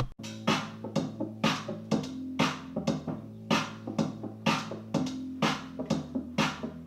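Electronic background music with a steady drum-machine beat of about two strikes a second over a sustained synth bass, starting abruptly at a cut.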